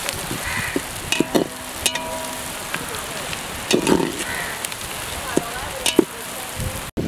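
Chopped onions and green chillies sizzling as they fry in oil in an aluminium pot, stirred with a metal spoon that clicks and scrapes against the pot several times.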